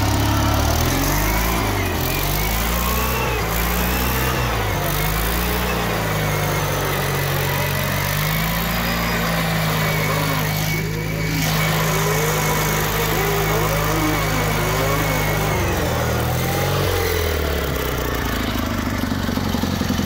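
1978 Sears GT/18 lawn tractor's engine revving up and held at full throttle for a burnout, its rear tyres spinning on the asphalt while the tractor is held by a strap. The engine drops back toward idle about 16 seconds in.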